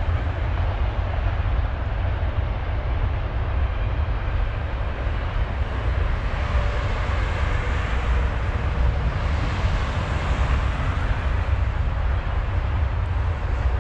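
Wind buffeting the microphone in a steady low rumble, over road traffic noise from a nearby road; a passing vehicle swells and fades in the middle.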